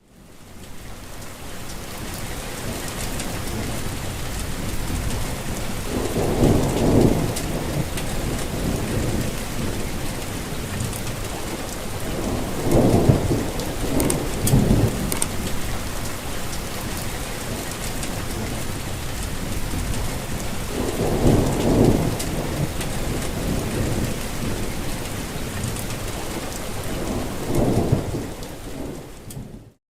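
Steady heavy rain falling, with several low rolls of thunder rising over it: about six seconds in, twice around thirteen to fifteen seconds, around twenty-one seconds and near the end. The rain fades in at the start.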